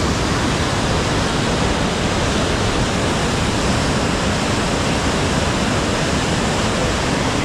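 Water rushing over a river weir: a steady, loud roar of falling water.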